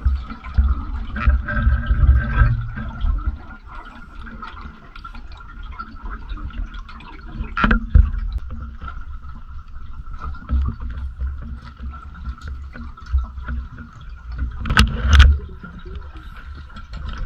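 Underwater sound picked up by a diver's camera: low, uneven rumbling of water moving against the housing, with a steady thin whine. Sharp knocks come about eight seconds in and twice more near the end.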